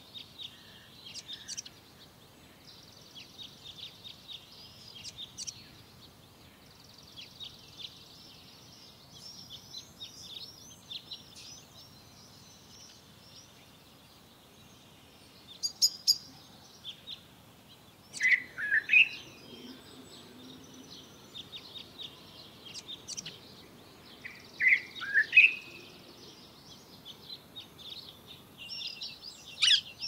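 Common blackbird singing: soft, high twittering phrases again and again, with two louder, lower warbled phrases about 18 and 25 seconds in.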